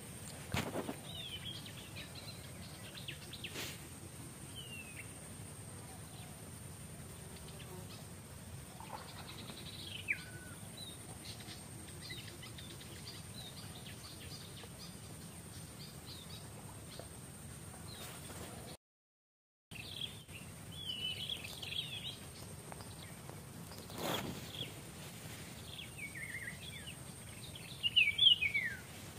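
Short, high chirping calls that fall in pitch, scattered throughout and loudest in a quick cluster near the end. Underneath runs a faint steady high tone, with a couple of brief soft knocks.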